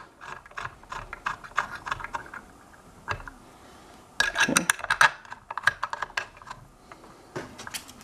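Quick small clicks and taps of metal parts being handled as a hoverboard's hub-motor axle, its clamp block and hex bolts are set into the aluminium frame by hand. There is a dense run of clicks about halfway through.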